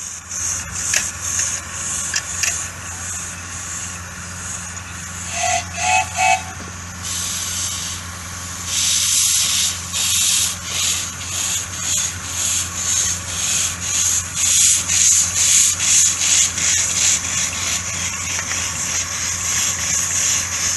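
Miniature steam locomotive working, its steam exhaust chuffing at about two beats a second, with the hiss of steam from open cylinder drain cocks; the chuffing grows louder from about eight seconds in. A short two-note whistle sounds about six seconds in.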